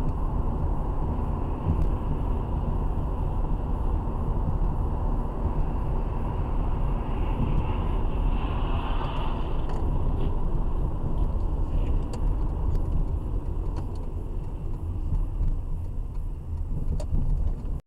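A car's steady road noise heard from inside the cabin while driving at highway speed: a low rumble of tyres and engine. About halfway through a hiss swells and fades as another car passes close alongside.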